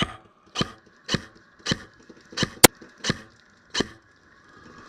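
Airsoft rifle firing single shots in a steady string, about two a second, with one sharper, louder crack a little past the middle; the firing stops near the end.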